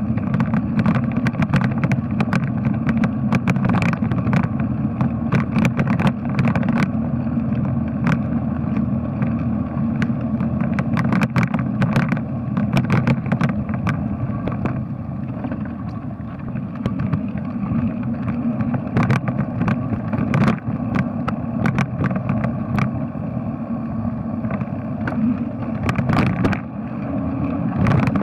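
Bicycle riding noise: a steady low rumble of tyres and wind on the moving bike, with frequent sharp clicks and rattles scattered throughout.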